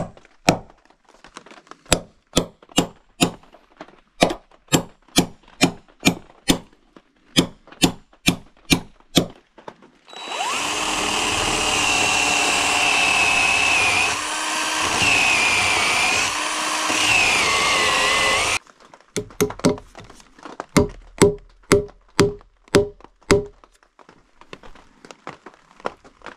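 A cordless drill boring into a wooden log, running for about eight seconds with a wavering whine as the bit bites. It is framed by runs of sharp, regular knocks at about two a second, before the drilling starts and again after it stops.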